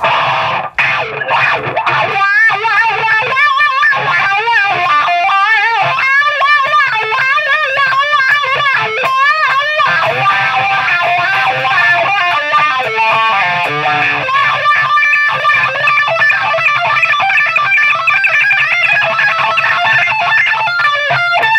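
Electric guitar played through a Cry Baby wah pedal with its controls turned up full. The wah sweeps back and forth over the notes through the first half, then the playing moves into longer sustained notes and lines.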